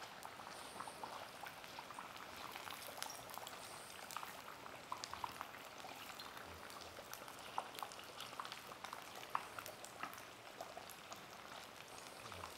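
Cannoli dough shells deep-frying in a saucepan of oil at about 160 °C: a faint, steady sizzle with many small crackles and pops.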